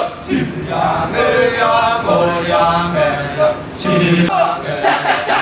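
Kecak chant: men's voices chanting a slow melody in long held notes, with a louder held note near the end, after which the voices turn short and choppy.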